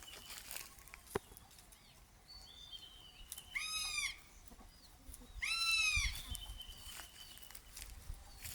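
Crested hawk-eagle giving two drawn-out, shrill screaming calls, each arching up and then down in pitch, the second longer and louder; faint high chirps of small birds around them.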